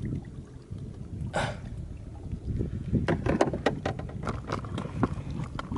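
Irregular knocks and clicks of gear being handled in a canoe, over a low rumble, with a short rustle about a second and a half in.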